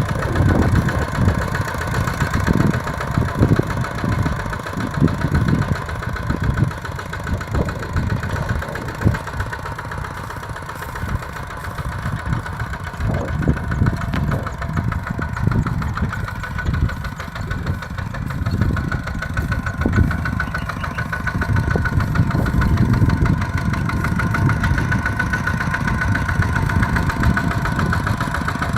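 Kubota RT-120 diesel tractor engine running steadily under load while ploughing a wet rice field, its low chugging rising and falling in loudness.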